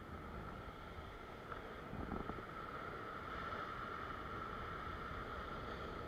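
Ocean surge washing and foaming over a rock ledge, a steady rushing noise with wind on the microphone. A faint steady high whine runs through it and grows stronger from about two seconds in, just after a brief knock.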